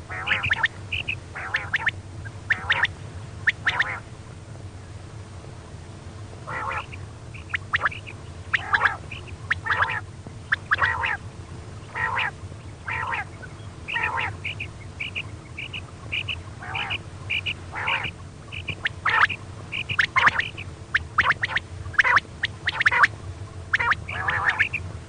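Female quail calling: short, sharp 'kirik' notes repeated in irregular clusters over a steady low hum. This is the call used as a lure to draw male quail.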